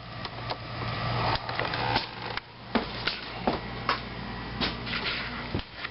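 Irregular knocks and clicks of someone walking and moving things while going indoors, likely footsteps and a door, over a steady low hum.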